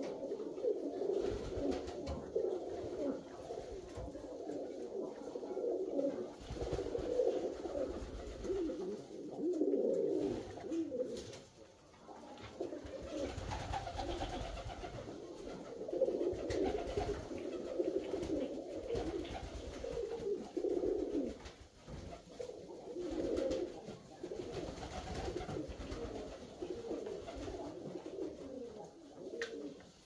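A group of Alföldi-Körösi tumbler pigeons cooing, their calls overlapping almost without a break. A low rumble comes and goes underneath.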